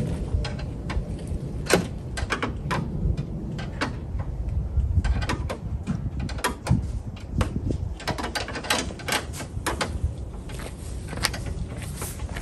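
Irregular metallic clicks and taps of hand tools working a car battery's fittings under the bonnet during a battery change, over a steady low rumble.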